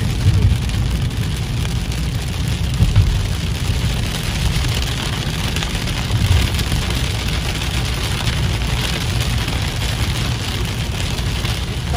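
Heavy rain pelting a car's windshield and roof, heard from inside the cabin over the steady low rumble of the car driving on a wet road.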